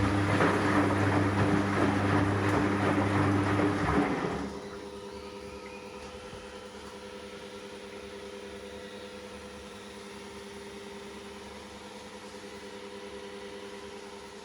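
Gorenje PS 060 A washing machine running on a boil wash: its Končar motor hums and water swishes loudly for about four seconds, then stops. A much quieter steady hum is left after it.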